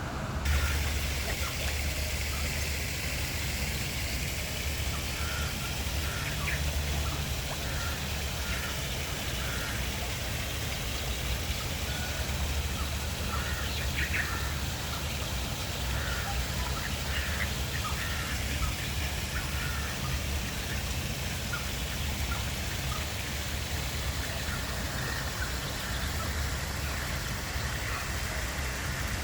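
Birds calling in an aviary: short, scattered chirps and calls over a steady low rumble.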